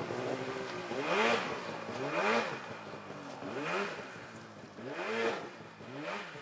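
Polaris Pro RMK 800 two-stroke snowmobile engine revving up and down in about five repeated surges, growing fainter as the sled rides away through deep powder.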